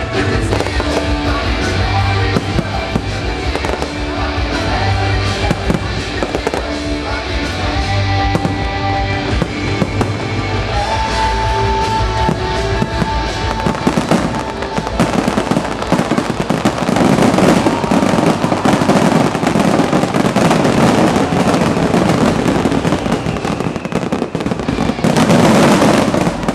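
Fireworks bursting over a patriotic music soundtrack. About halfway through, the music gives way to a dense, rapid barrage of bangs and crackles from many shells and fountains fired at once, the show's finale, which cuts off at the end.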